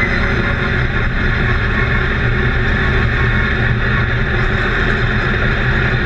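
Stock car race car engine running at a steady, moderate throttle, heard from inside the cockpit, with a constant rushing noise over it.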